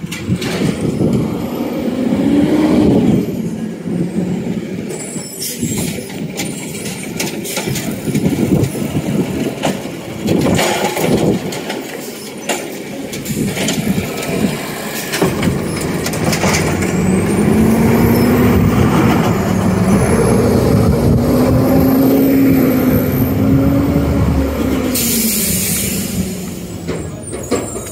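Side-loading garbage truck's diesel engine running and revving as it drives past close by, its pitch rising and falling, with a short hiss of air brakes near the end.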